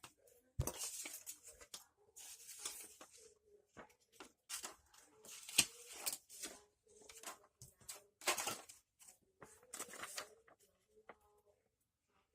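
Small plastic toy parts and packaging being handled: bouts of crinkly rustling broken by sharp clicks, coming in several clusters with short pauses between them.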